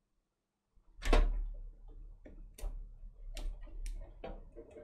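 Plastic 24-pin ATX power connector being pushed into a braided extension cable: a sharp click about a second in, then several smaller clicks and the rustle of sleeved cables being handled.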